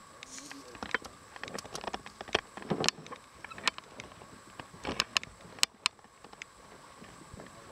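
Irregular small water splashes, slaps and clicks, several loud ones in the middle of the stretch, over a faint steady background hum.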